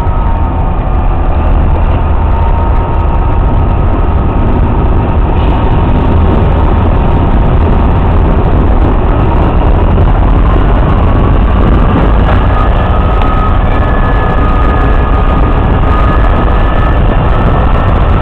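MÁV class M44 diesel-electric locomotive idling at a standstill: a loud, steady low engine rumble with a thin whine that drifts slowly up and down in pitch.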